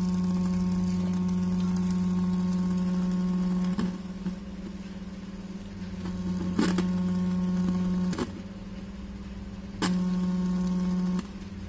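Homemade Bluetooth amplifier's speaker giving a steady low buzz that cuts out with a click about four seconds in, returns, cuts out again, and drops once more near the end. The noise comes from a poor ground, which the builder puts down to an over-long ground wire from the Bluetooth panel.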